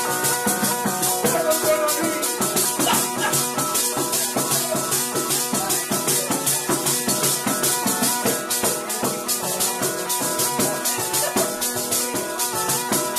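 Calabrian zampogna bagpipe playing a tarantella melody over its steady drones, with a tamburello frame drum's jingles keeping a quick, even beat.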